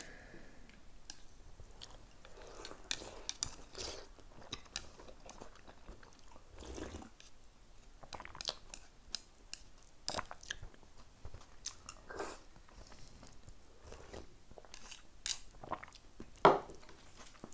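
A person eating: sipping miso soup from a bowl and chewing, with small sharp clicks scattered throughout. There is a louder single mouth or eating sound near the end.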